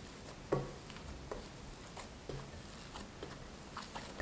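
Hands kneading crumbly glutinous rice flour dough into a ball in a ceramic bowl: soft pats and squishes about once a second.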